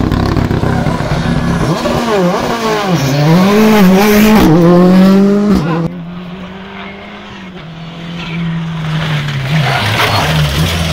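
A rally car's engine revving hard, its pitch rising and falling repeatedly through the gears. About six seconds in the sound drops suddenly to a quieter engine note, as a Subaru Impreza rally car approaches and grows louder, sliding past on the loose verge near the end.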